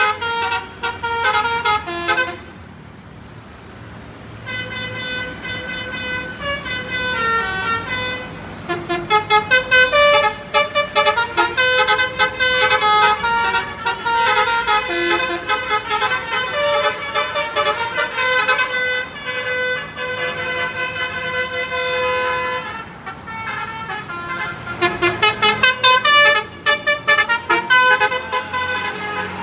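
Basuri-type telolet bus horns, electric multi-tone horns, playing melodic tunes note by note. There is a short lull a couple of seconds in, and runs of quick staccato notes around ten seconds in and again near the end.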